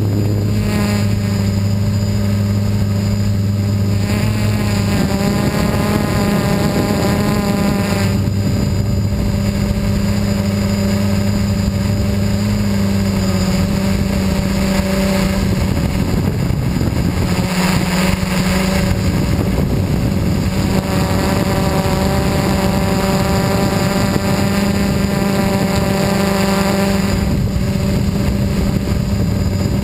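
FPV quadcopter's electric motors and propellers whining steadily, heard up close from the onboard camera. The pitch steps up and down several times as the throttle changes.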